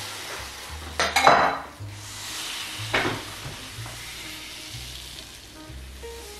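Batter sizzling in a hot hopper pan. About a second in there is a metal clatter and a loud burst of sizzle, and about three seconds in a second, shorter burst.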